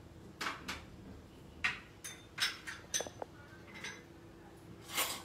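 Kitchen utensils being handled: a series of short scrapes and light clinks, spaced irregularly about every half second, over a faint steady hum.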